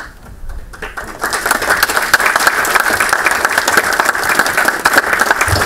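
Audience applauding: many hands clapping, swelling in about a second in and then holding steady and loud.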